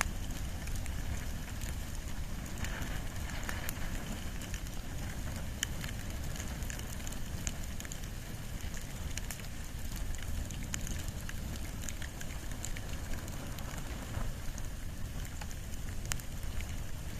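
Wood and bamboo fire burning steadily: a low, even noise of the flames with many scattered sharp crackles and pops.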